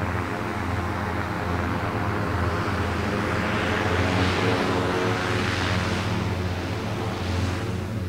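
Archer Midnight eVTOL's twelve electric propellers running in low flight: a steady hum of many tones over a low drone, with a rushing sound that swells and fades a few times in the second half.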